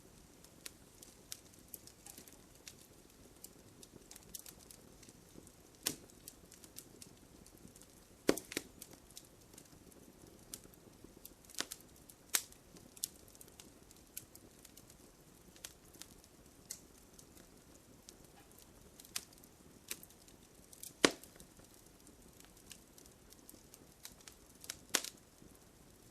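Wood campfire crackling: a soft, steady rustle of burning with frequent sharp snaps and pops at irregular intervals, the loudest about eight seconds in and again a little after twenty-one seconds.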